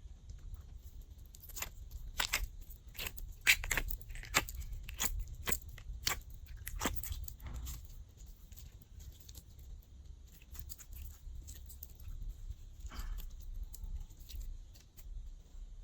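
Glossy slime being squished and stretched by hand, giving a run of wet clicks and pops that is thickest in the first half and thins out later.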